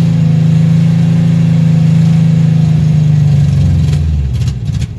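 1974 Volkswagen Super Beetle's air-cooled flat-four engine, just started on a booster pack, running steadily. About four seconds in it slows, stumbles and dies out.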